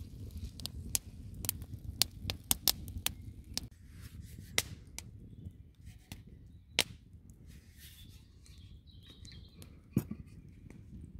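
Campfire crackling under a pan of steak and vegetables: a string of sharp pops and snaps, thickest in the first few seconds and thinning out, with one louder snap near the end.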